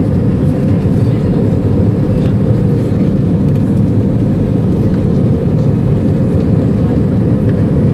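Steady low rumble of jet engines and rushing air heard inside the cabin of an Airbus A320 in flight shortly after takeoff.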